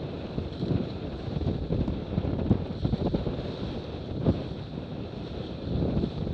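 Wind buffeting the microphone over the rush and splash of water along the hull of a Cirrus F18 catamaran sailing at speed, rising and falling unevenly, with a sharper splash about four seconds in.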